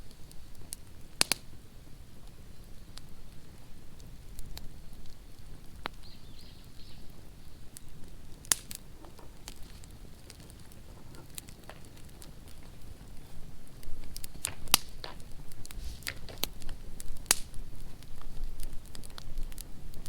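Outdoor wood fire crackling, with irregular sharp pops that grow more frequent in the second half.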